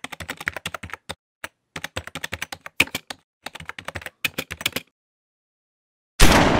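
Rapid, irregular clicks like typing on a computer keyboard for nearly five seconds, then a short silence. Near the end a sudden loud bang with a long fading rush of noise.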